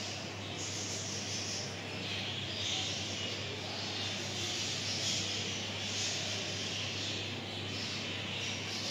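Steady low hum under an even hiss: background room noise with no distinct events.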